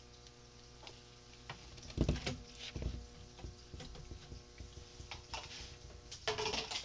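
Scattered clicks and knocks of parts and tools being handled, with two louder knocks about two seconds in, over a faint steady hum that stops about six seconds in.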